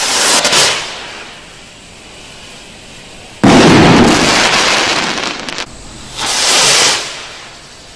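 Consumer firework rockets: a rocket launches with a short hiss, and about three and a half seconds later it bursts with a sudden loud bang that trails off over about two seconds. After a cut, a second rocket launches with another hiss near the end.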